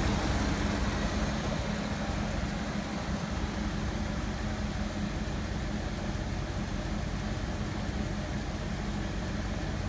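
The supercharged 5.4-litre V8 of a 2003 Ford SVT Lightning idling steadily.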